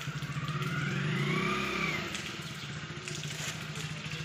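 A motor vehicle's engine running steadily nearby on a wet street, as a low, even drone. A higher wavering tone rises and falls over the first two seconds.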